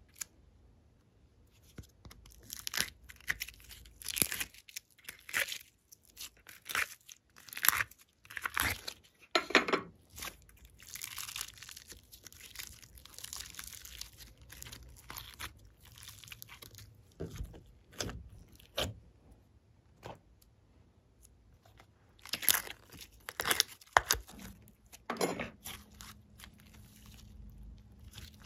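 Glossy slime being pulled apart and stretched by hand: irregular sticky crackles and tearing pops, coming in clusters with short pauses between.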